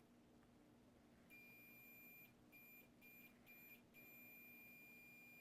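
Whirlpool Cabrio dryer control board's beeper, faint and high-pitched, sounding as its buttons are pressed in a test. One long beep comes about a second in, then a run of short beeps, then another long beep near the end.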